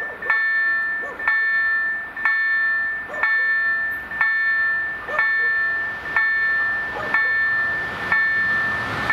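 Polish level-crossing warning bells (EDE-1 electronic bells) striking about once a second, each stroke ringing and fading before the next, which signals that the crossing is closed for an approaching train. The rush of the oncoming train rises near the end.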